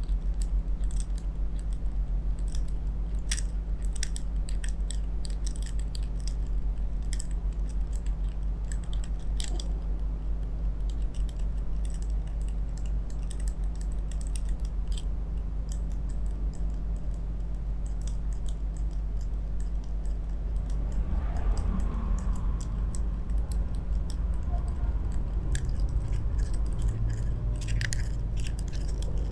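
Pair of small metal facial massage rollers on handles rolled over the skin of the face, giving scattered light metallic clicks and ticks close to the microphone, over a steady low hum.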